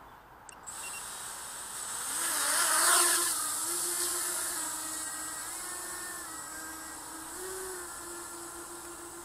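Small quadcopter's brushless motors and DAL 5045 propellers spinning up, a steady whine whose pitch steps up and down with the throttle. The rush of propeller noise is loudest about three seconds in, then settles to a steadier hum.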